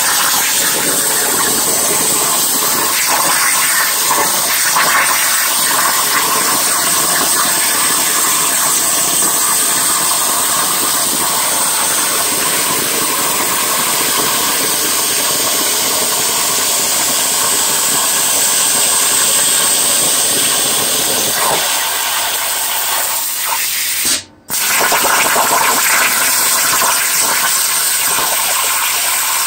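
Langmuir Crossfire CNC plasma table's torch cutting 18-gauge sheet metal: a loud, steady hiss of the plasma arc and its air. Near the end the arc cuts out abruptly for a moment, then fires again and the hiss resumes.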